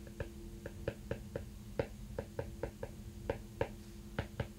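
Stylus tip tapping and clicking on a tablet's glass screen during handwriting: a string of short, irregularly spaced clicks, about three a second, over a faint steady hum.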